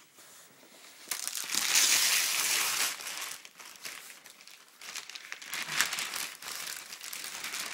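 Wrapping paper crinkling and rustling as a present is unwrapped by hand. It is loudest for a couple of seconds starting about a second in, then goes on in softer, on-and-off rustles.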